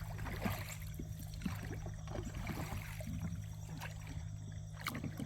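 Water sloshing and small knocks around a fishing boat, over a steady low hum.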